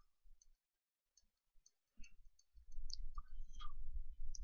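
Faint clicks of a computer mouse as a 3D view is dragged around. A low rumble comes in from a little past halfway.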